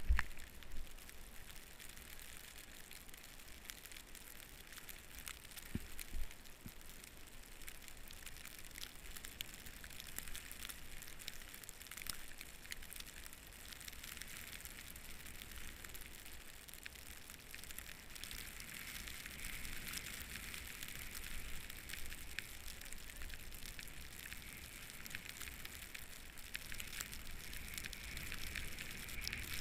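Snowboard riding through deep fresh powder: a steady hiss of the board and spraying snow, peppered with crackles and ticks of snow striking the camera. A low thump right at the start and another about six seconds in.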